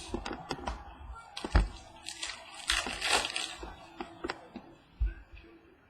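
Trading cards and their foil pack wrapper being handled: a run of sharp clicks and crinkling, densest about one and a half to three and a half seconds in.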